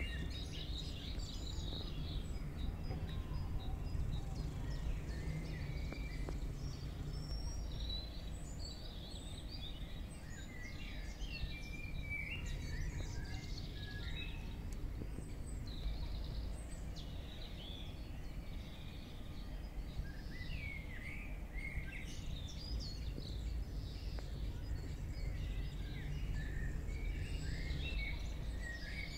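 Several small birds chirping and calling on and off, over a steady low rumble of outdoor background noise.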